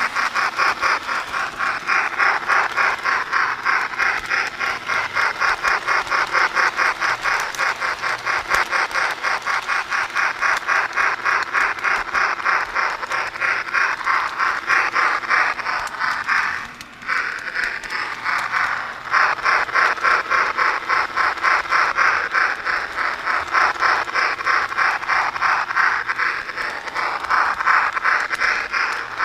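SMR Pennsylvania D6 4-4-0 model steam locomotive running along its track with a rapid, even beat of about four to five pulses a second. The sound fades briefly about halfway through, then picks up again.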